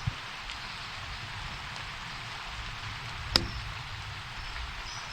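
Steady rain-like hiss, with a soft thump at the start and one sharp click about three and a half seconds in.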